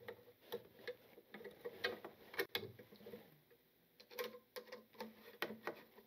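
Faint, irregular small clicks and ticks of a screwdriver working a terminal screw on a lampholder light fixture while the white neutral wire is fastened under the silver terminal.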